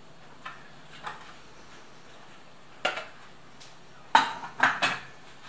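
Dishes clattering in a kitchen cupboard as a plastic bowl is pulled out from among them: a few light knocks, then a louder run of clattering knocks near the end.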